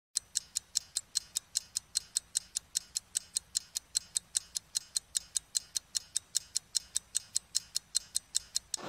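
Clock-like ticking sound effect for an animated countdown leader: sharp, evenly spaced ticks at about five a second, with no other sound.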